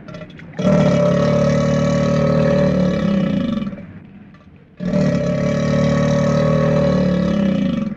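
Two long animal calls in a row, each held for about three seconds at a steady pitch and dropping slightly as it ends.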